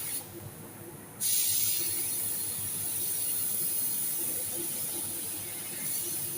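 Pneumatic paint spray gun hissing as it sprays a second coat onto a car fender. The spray stops briefly near the start and then starts again suddenly.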